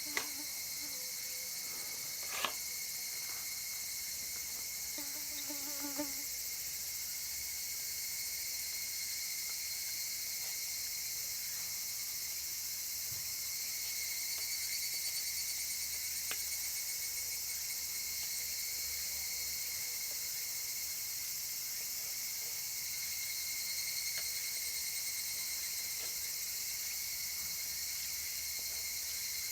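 Steady high-pitched chorus of summer insects shrilling, with a few light clicks or knocks in the first six seconds.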